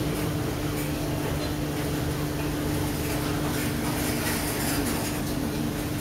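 Steady machine hum with a constant low tone, with faint light clinks as enamelled metal kettles are handled on a metal rack.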